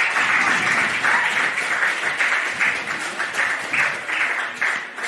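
People clapping to applaud a goal. The applause is dense at first, then thins into separate claps that fade away near the end.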